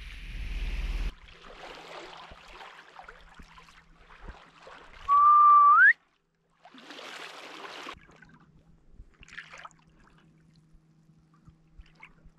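A single loud whistled note over wind and water noise on a boat. It is held steady for most of a second and then slides sharply upward, about five seconds in.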